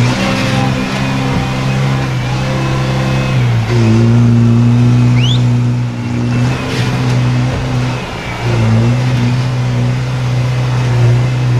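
Engine of an off-road trial 4x4 working hard under load on a steep dirt climb, running at high revs and briefly dipping and picking up again a few times as the driver feeds the throttle.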